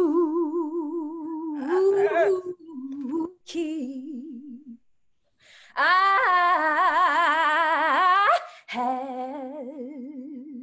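A woman singing unaccompanied in slow, long-held notes with a wide vibrato and only a few words. About six seconds in, a louder, higher note swells up and holds for a couple of seconds.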